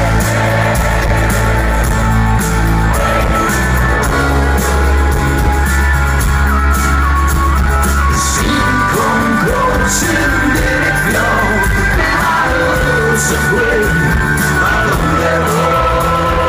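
Live rock band playing, with a singer's held melody over steady bass notes, heard from among the audience, with shouts from the crowd.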